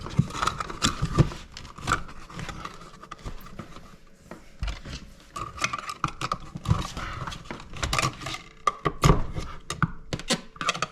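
Irregular clicks, knocks and light scraping of hand work on an electrical outlet box and its wiring.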